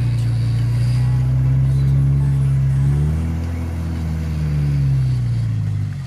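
Off-road 4x4's engine running under load, its note rising about halfway through and easing back down near the end.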